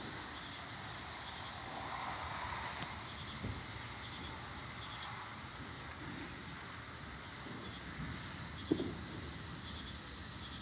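Outdoor night ambience: a steady high-pitched drone with faint repeated chirps over a low, noisy background, and a single soft knock near the end.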